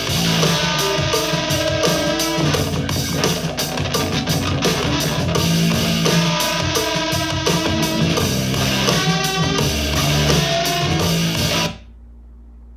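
Music with guitar and drums, no vocals, playing through a Bose Bluetooth speaker in a sound test; it cuts out about a second before the end, leaving only a low hum.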